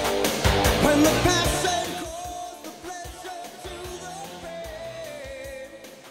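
Rock music with singing; the drums stop about two seconds in, leaving a wavering held melody as the music fades out.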